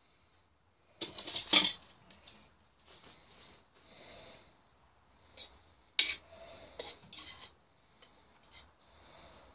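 Metal utensil scraping and clinking against a stainless steel pot while stirring stew. The loudest clinks come about a second and a half in, another cluster follows around six to seven seconds, and softer rubbing runs in between.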